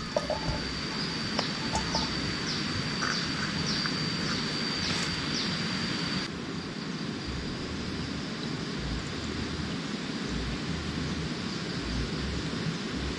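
Forest ambience: a steady high-pitched call with short chirps repeating over it, which stops abruptly about six seconds in. After that there is a steady hiss with gusts of low wind rumble on the microphone.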